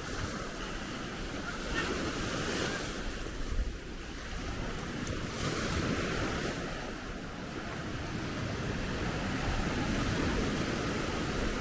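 Ocean waves breaking and washing up on a sandy beach, with wind buffeting the microphone; the surf swells in a couple of washes.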